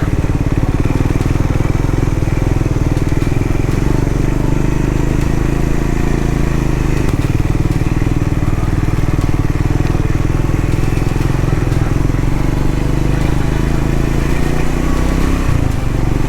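Triumph Scrambler 400X's single-cylinder engine running steadily.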